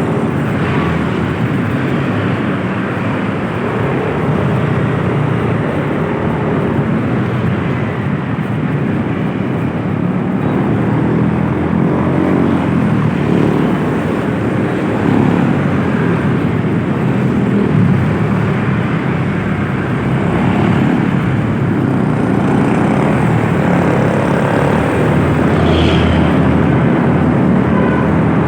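A vehicle engine droning steadily at travelling speed, mixed with loud wind and road noise.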